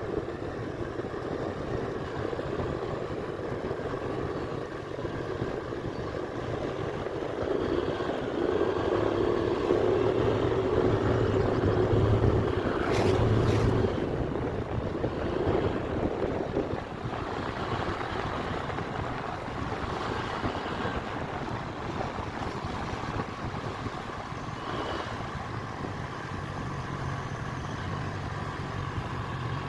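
A Honda Click 125i scooter's single-cylinder engine runs steadily on the move, with wind noise on the microphone. It gets louder for a few seconds in the middle, then settles back.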